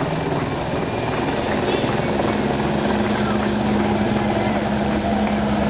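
A steady engine drone, a low hum that firms up about two seconds in, with spectators' voices mixed in.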